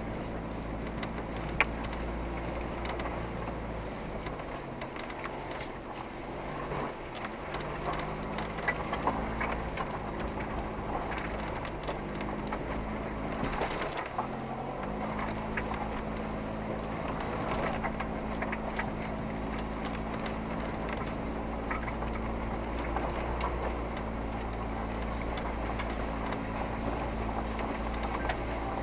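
Engine of an off-road SUV crawling at walking pace, its steady hum shifting in pitch about 7 and 14 seconds in, with tyres crunching over a rocky dirt track and small knocks and rattles throughout. A sharp click about a second and a half in.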